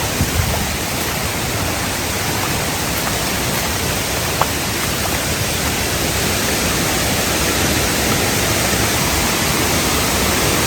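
Steady rush of a small side waterfall cascading down a rain-swollen mountain stream, growing slightly louder near the end. A single brief tick about four and a half seconds in.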